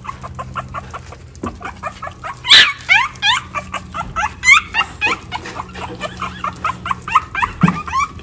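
Three-week-old French bulldog puppies crying with many short, high squeaks, several a second, louder from about two and a half seconds in. They are being weaned off their mother.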